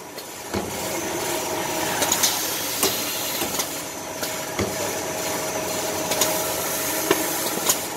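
Automatic maxi-roll paper band saw cutting machine running: a steady mechanical hum with a held mid-pitched tone and several sharp clacks.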